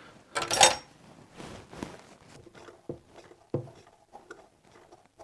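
Metal parts being handled on a workbench: a short clattering scrape about half a second in, then a few separate knocks and clicks.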